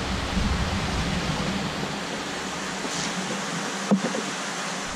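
Steady rushing hiss of a large aquarium room's background noise, with one short knock from the plastic cooler being handled at the tank edge about four seconds in.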